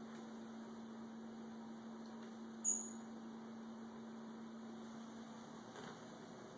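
Faint steady low electrical hum, with one short high squeak about two and a half seconds in.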